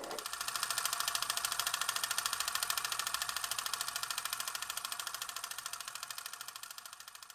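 Film projector running: a rapid, even mechanical clatter that slowly fades away near the end.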